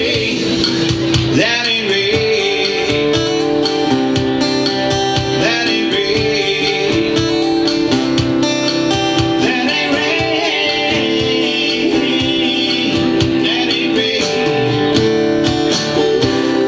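Live music led by a strummed acoustic guitar, playing steadily.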